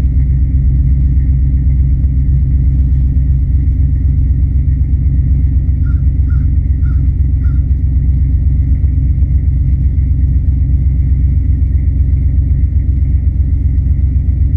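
Pickup truck engine idling steadily through its dual exhaust in a very cold start, a deep, even rumble with a fast pulse. Crows caw four times in the background about six to seven and a half seconds in.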